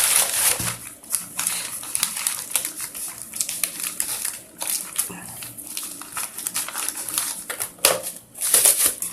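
Packaging being opened and handled by hand: a busy run of rustling, crinkling and light tapping of cardboard, paper and plastic, with a couple of louder rustles near the end.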